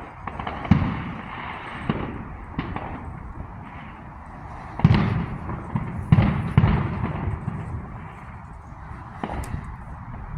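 Consumer fireworks going off: a series of booming bursts over a constant background of distant pops. The loudest booms come close together about five to seven seconds in.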